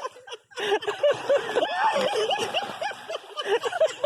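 People laughing hard off camera: a rapid, unbroken run of high-pitched laughs.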